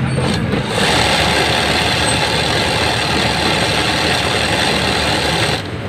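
Industrial sewing machine running fast, its needle stitching a freehand embroidery design through cloth. It gives a brief short run, then runs steadily from about a second in and stops near the end.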